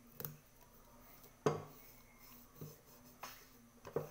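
A small metal pot knocking and clinking as it is handled while a thin metal patch is pressed into place inside it: about five short knocks, the loudest about one and a half seconds in.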